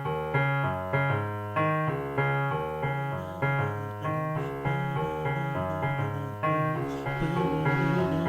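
Instrumental keyboard music in a piano sound: chords struck about every half second over a bass line, each note fading after it is struck.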